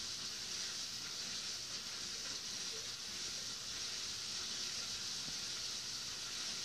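Steady high hiss of room tone with no distinct events.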